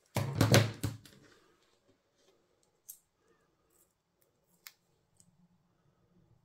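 Scissors snipping through double-sided foam tape: one loud cut about a second long right at the start, then a couple of faint clicks.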